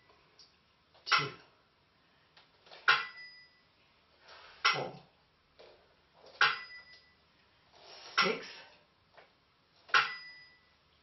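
Burmese si and wa keeping the dance beat: a small cymbal-bell's ringing stroke alternates with a dry bamboo clapper stroke, about one stroke every 1.8 seconds, seven strokes in all.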